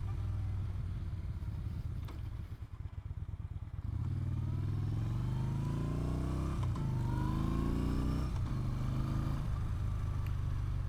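2017 Yamaha Bolt's air-cooled V-twin pulling away: low uneven running at first, then revs rising, dropping twice at gear changes and climbing again.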